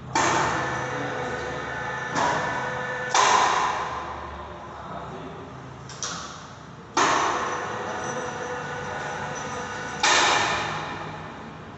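Electric chain hoist of a small goods lift, started and stopped from its push-button control: five sudden metallic clunks, each fading away over a second or two with a steady ringing hum under it.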